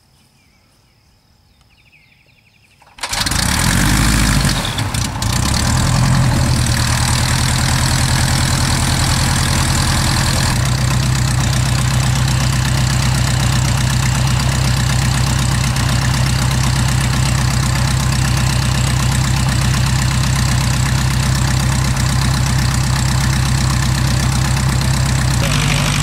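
An Aeronca L3's four-cylinder Continental engine, hand-propped, catches suddenly about three seconds in after a quiet pause. It then runs steadily as the propeller turns.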